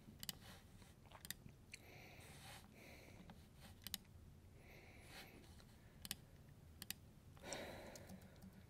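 Faint computer mouse clicks, about seven sharp ones scattered over near-silent room tone, some in quick pairs.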